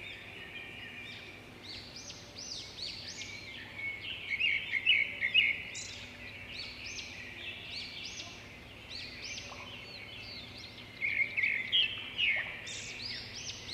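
Morning birdsong: several songbirds singing and chirping at once in quick series of short, high notes, with the loudest bursts about four to five seconds in and again near the end.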